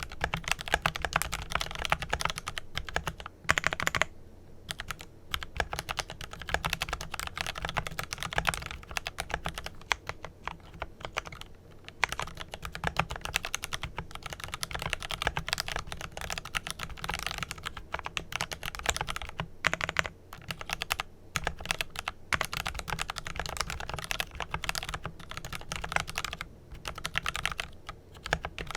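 Continuous fast typing on a Glorious GMMK Pro mechanical keyboard with lubed Kailh Pro Purple tactile switches and PBT keycaps, a rapid stream of keystrokes broken by a few brief pauses.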